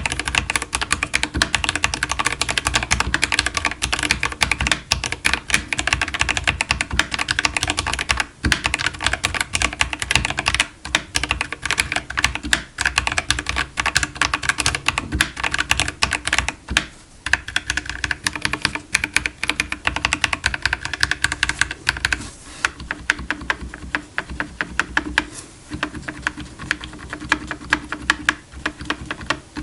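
Rapid, continuous typing on Gateron mechanical keyboard switches of a Dark Project KD87A. About 22 seconds in, the clatter turns duller, with less bright click.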